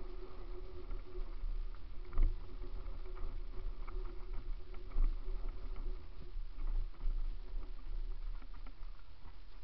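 Mountain bike descending a rough dirt and gravel trail: steady wind rumble on the microphone, tyres rolling over loose stones and the bike rattling. Harder knocks come about two seconds in and again about five seconds in.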